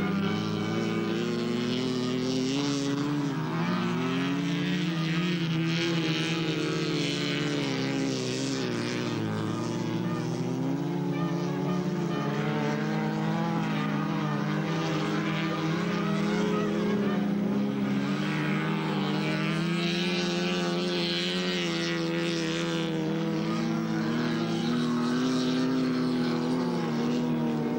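Racing car engines at high revs, several running at once, their pitch rising and falling as the cars accelerate and lift around the ice track.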